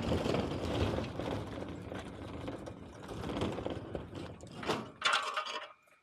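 Two-wheeled hand truck rolling over rough, cracked concrete, its load (a metal-framed glass enclosure) rattling and clattering. Near the end there is a louder clatter as the truck is brought to a stop, and then the noise cuts off.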